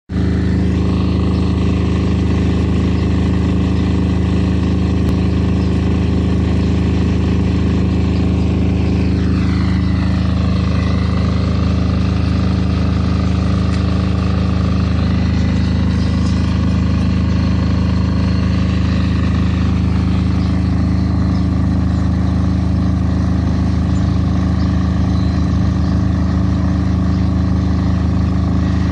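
Diesel generator in a soundproof canopy running steadily, a constant low engine hum. A fainter, higher tone in the mix falls in pitch about nine seconds in.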